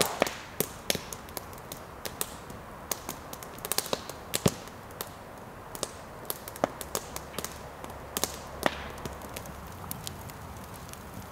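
Wood campfire crackling in a fire pit: irregular sharp pops and snaps over a soft steady hiss.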